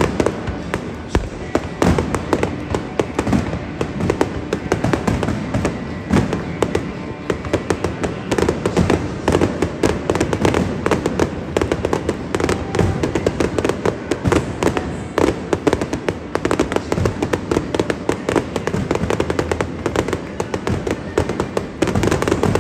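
Dense barrage of aerial firework bursts, with sharp bangs and crackle coming many times a second without a break.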